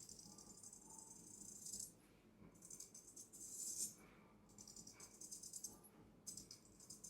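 Several steel straight razors rattling and clinking together in the barber's hand in the 'jumping three razors' technique, in soft passes of a second or two separated by short pauses.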